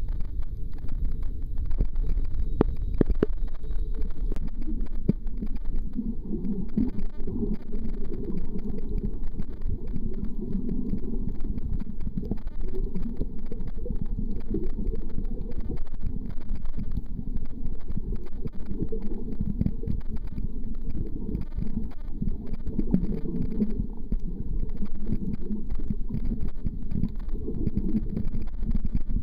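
Muffled underwater sound from a camera held in the sea: a steady low rumble of moving water with constant fine crackling, and low hollow swells every few seconds.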